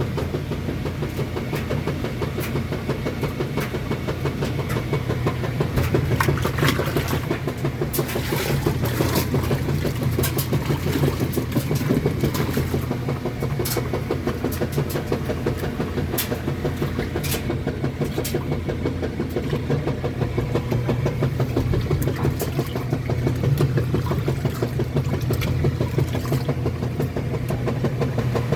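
Kenmore washing machine running, a steady low motor hum with a fast ripple and a few sharp clicks now and then.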